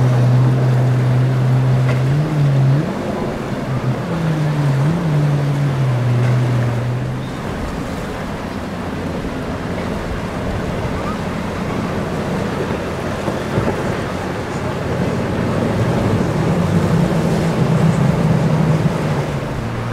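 Motorboat engines droning, the pitch dipping and rising a few times over the first seven seconds, then fading into wind and surf noise; another engine drone comes up near the end.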